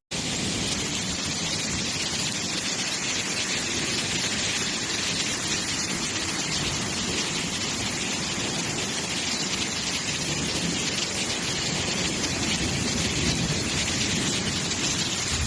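Heavy storm downpour pelting down on surfaces, a dense, steady hiss that holds at one level throughout.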